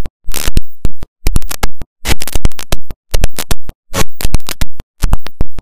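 Very loud, distorted music that keeps cutting out abruptly to silence, roughly once a second, so it sounds choppy and stuttering.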